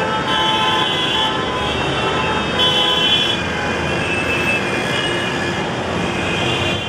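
Dense city road traffic: a steady wash of engine and road noise with many vehicle horns honking over it, one louder horn about three seconds in.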